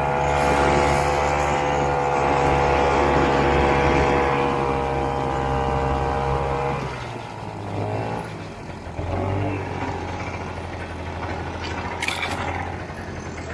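1969 Ski-Doo Olympique 320cc single-cylinder two-stroke engine running steadily on the throttle, then its note drops suddenly to a lower, rougher run about seven seconds in. Near the end, branches briefly scrape and crack against the sled.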